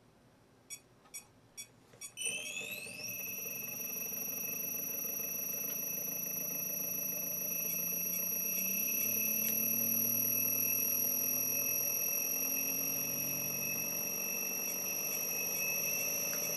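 A few clicks, then the CR-Kromrey converter's north-side armature starts up: a high-pitched whine sweeps up in pitch about two seconds in and then holds steady, over a lower hum that wavers as the armature runs.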